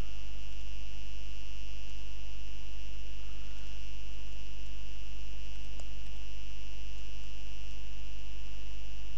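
Steady electrical mains hum with a constant high-pitched whine, picked up by the recording microphone's signal chain; a faint click about six seconds in.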